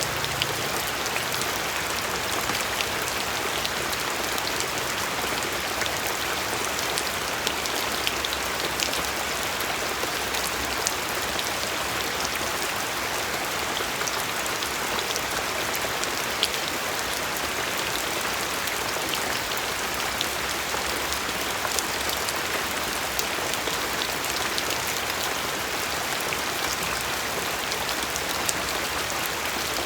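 Steady rain falling, an even hiss with scattered sharper drops ticking through it.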